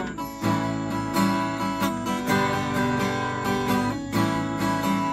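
Acoustic guitar strummed in a steady rhythm, changing chords about every two seconds.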